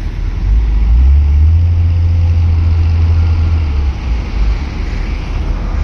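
Low rumble of a vehicle engine, swelling about a second in and easing off near four seconds.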